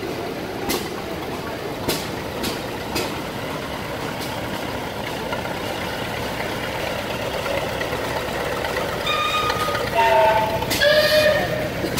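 Old tractor engine running as the tractor drives slowly past, with a few sharp clicks in the first few seconds. Near the end, a few short high tones, like a horn, sound twice and are the loudest part.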